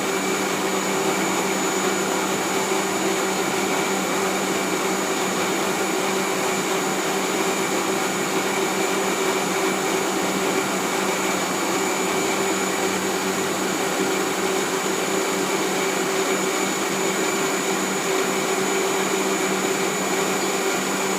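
Electric kitchen blender running steadily, blending a mix of rice, kencur and water into jamu, with a constant motor whine. It is switched off right at the end.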